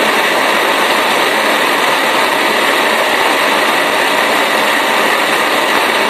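Gas blowtorch flame burning with a steady, loud hiss as it heats a copper cable lug filled with molten solder, while the stranded copper cable end is lowered into the solder.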